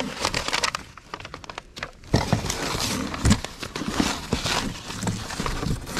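Old papers, cards and envelopes rustling and shuffling as hands dig through a cardboard box, with short handling clicks and a soft knock against the box. The rustling grows busier about two seconds in.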